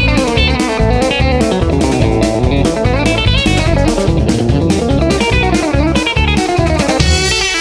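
Background music: electric guitar over a steady drum beat.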